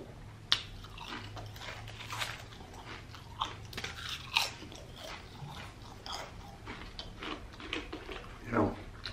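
Potato chips being bitten and chewed close to the microphone: a run of sharp, dry crunches, loudest about half a second in and again about four and a half seconds in, with a short louder noise near the end.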